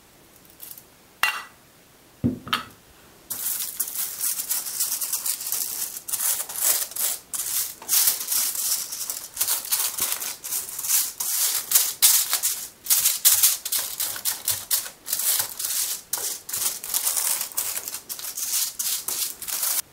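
Silicone pastry brush scrubbing oil over crinkled aluminium foil lining a metal baking pan: a dense, scratchy foil rustle of quick back-and-forth strokes that starts about three seconds in, after a couple of soft clicks.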